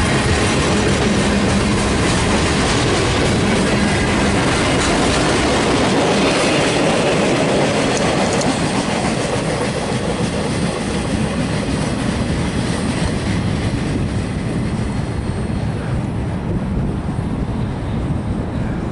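Freight train of loaded center-beam lumber flatcars rolling past at speed, steel wheels clattering over the rails, at times with a thin high wheel squeal on the curve. The noise eases off in the second half as the caboose on the end goes by and the train draws away.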